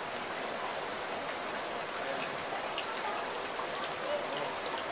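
Steady water noise: an even hiss of trickling, pattering water with faint scattered drip-like ticks.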